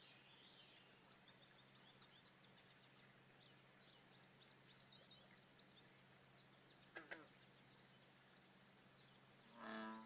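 Faint pond wildlife: scattered high bird chirps through the first half, two short downward-sweeping calls about seven seconds in, and one low frog croak near the end, the loudest sound, over a faint steady low hum.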